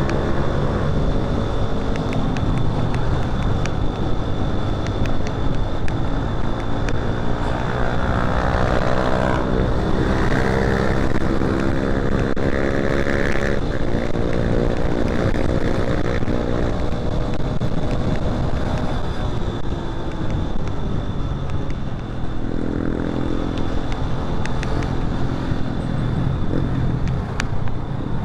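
Motorcycle engine running in road traffic from the rider's seat, its pitch rising several times as it speeds up, over a steady rush of road and wind noise.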